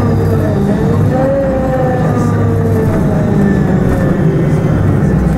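City bus's engine and drivetrain heard from inside the passenger cabin while riding: a steady low hum with a whine that dips and then rises in pitch about a second in as the bus changes speed.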